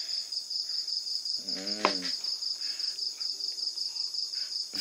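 Crickets trilling steadily in the background, a continuous high-pitched pulsing chirr. A short vocal sound from a man's voice comes about two seconds in.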